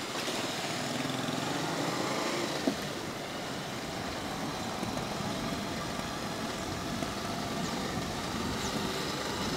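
Motorcycle running steadily at riding speed, its engine mixed with road and wind noise.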